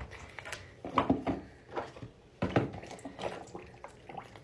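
Irregular knocks and clatter of silicone pop-it fidget toys being handled and put into a basin of water for washing.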